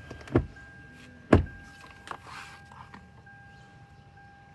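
Two sharp knocks about a second apart, the second louder, as the open driver's door of a Lexus sedan is handled at its inner panel, with a faint steady high tone underneath.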